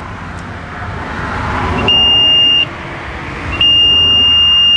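Electronic water level meter sounding its steady high-pitched tone, a short beep about two seconds in and then a longer one from about three and a half seconds on: the sensor on the end of the tape is touching the water in the bore and completing the circuit. Before and between the tones there is rustling from the tape being handled at the bore casing.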